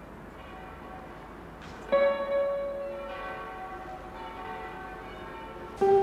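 Church bells ringing: a loud bell strike about two seconds in and another near the end, each note ringing on and slowly fading, over fainter strikes.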